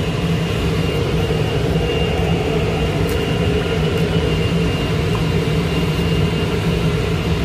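Steady rush of water flowing over rocks into a pool, a loud even noise with a deep rumble, under a faint steady high tone.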